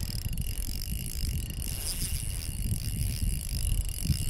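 Shimano Vanford spinning reel ticking rapidly and steadily while a heavy smallmouth bass pulls hard against the line.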